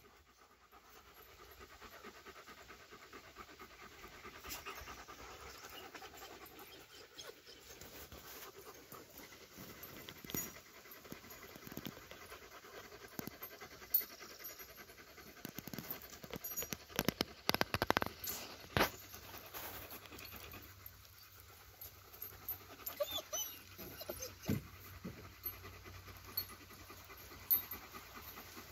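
German Shepherds panting close to the microphone, with scattered short clicks and knocks, the loudest cluster a little past the middle.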